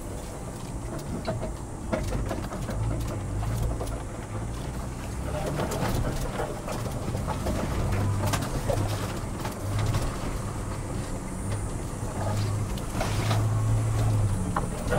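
Ford Bronco crawling slowly over a rocky dirt trail: low engine rumble with tyres crunching on gravel and rocks and scattered knocks and clicks. The rumble swells briefly near the end.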